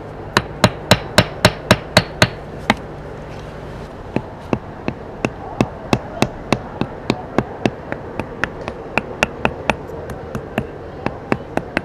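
Hammer tapping on brick masonry in a steady rhythm, about three sharp strikes a second, with a brief pause a few seconds in.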